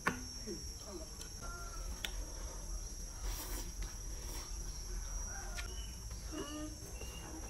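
Steady high chirring of crickets, with noodle-soup eating sounds over it: a slurp about three and a half seconds in and a few light clicks of chopsticks and spoon against the bowl. A short wavering call comes in a little before the end.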